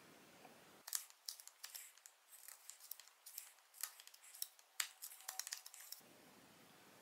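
Fixed-blade knife slicing into the wooden bow tip to carve a string groove, in a rapid, uneven series of short, sharp cutting strokes. The strokes start about a second in and stop about a second before the end.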